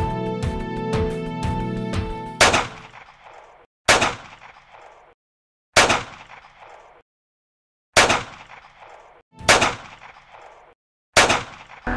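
Background music for about the first two seconds, then six single rifle shots, one every one and a half to two seconds, each dying away into silence before the next.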